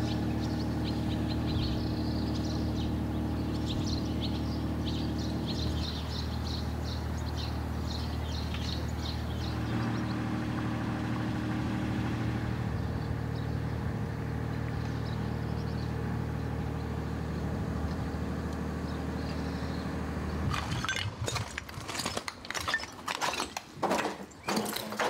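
An engine running steadily at idle, with birds chirping over it for the first half. About twenty seconds in, this gives way to irregular crunching and clattering steps over broken glass and debris.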